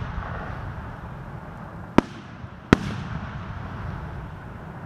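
Fireworks display: two sharp bangs of aerial shells bursting, about two seconds in and again under a second later, each trailing off in an echo over a steady low rumble.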